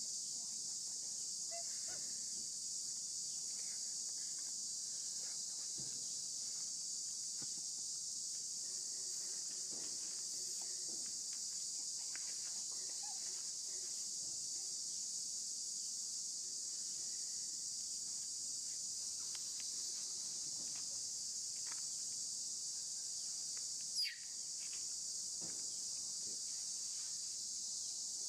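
Steady high-pitched insect chorus drones without a break. One brief sharp sound with a quick falling pitch cuts in near the end.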